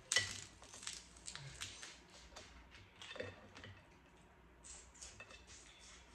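Crab legs being cracked open and eaten: irregular short cracks and crunches of shell and chewing. The loudest crack comes just after the start.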